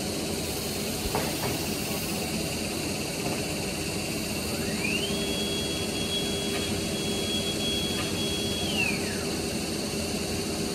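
Spindle motor of a Holztek PRO-R1A CNC nesting router winding up to a high steady whine, holding it for about three and a half seconds, then winding down, over a steady rushing hiss. A single click about a second in.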